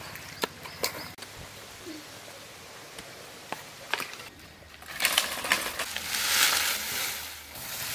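A few light clicks and knocks, then from about five seconds in a loud rustling and crackling of a bundle of dry fallen leaves being handled and dropped on the ground as fire kindling.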